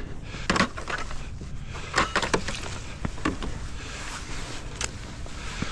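A handful of short, sharp knocks and clicks at irregular intervals over a low, steady rumble.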